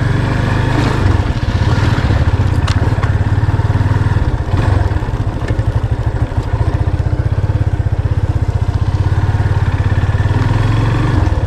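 Yamaha motorcycle engine running steadily as the bike is ridden slowly at about 15 km/h, a low, evenly pulsing exhaust note.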